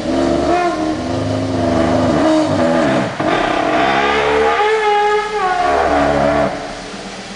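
A car's steering giving a pitched moaning noise as the steering wheel is turned slowly, the steering noise being checked. The tone holds steady, wavers up and down in pitch about midway, and drops away near the end.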